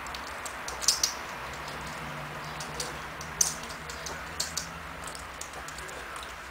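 Wild boar piglet suckling at a milk bottle's teat: irregular soft clicks and smacks, with a few louder ones about a second in and again past three seconds.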